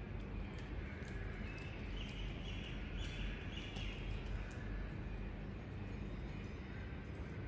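Steady low background rumble of ambient noise, with scattered faint ticks and a few faint chirps.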